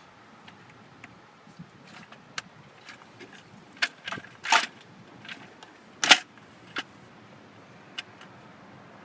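Scattered clicks and snaps of hands working spark plug wires and ignition parts under the hood, with two louder snaps about four and a half and six seconds in.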